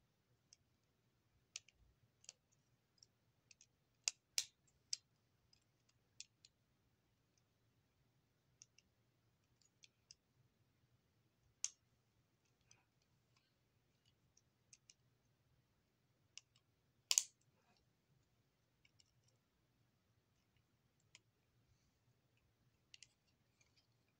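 Faint, irregular small clicks and taps, a handful of them sharper and louder than the rest.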